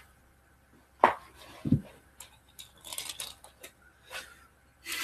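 Toy monster trucks being picked up and handled: a sharp knock about a second in, a low thump just after, then scattered light clicks and rustles.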